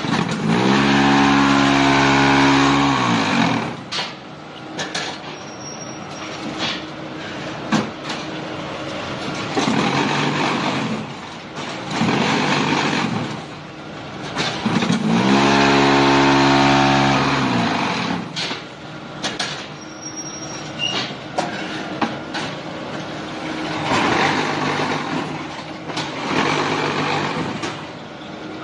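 Hydraulic automatic concrete block making machine running through its moulding cycle twice. Each cycle has a loud steady vibrating hum that winds down in pitch and stops, about fourteen seconds apart, followed by metallic clanks, knocks and stretches of noisier machine sound.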